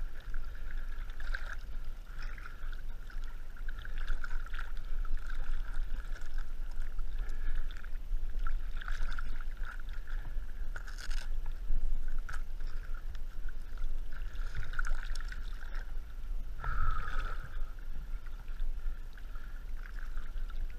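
Lake water sloshing and splashing against a camera held at the surface, heard muffled through the housing, with irregular splashes over a steady low rumble.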